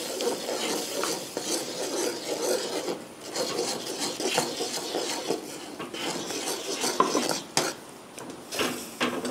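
A metal ladle stirring and scraping maida flour into hot water in a metal kadai: an irregular rough rasping as the flour clumps into dough, with a few sharp clinks of ladle on pan in the second half.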